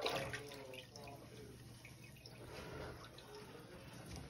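Faint dripping and sloshing of water in a clogged toilet bowl, with a Milwaukee AirSnake air drain gun pressed into the outlet; the water settles after the gun's air blast, which is fading at the start.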